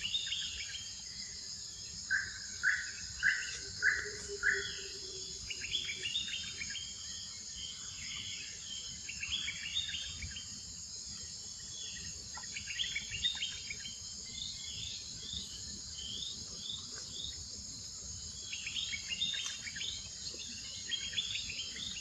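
Forest ambience: a steady high-pitched insect drone with birds chirping over it in short clusters, and four louder call notes a couple of seconds in.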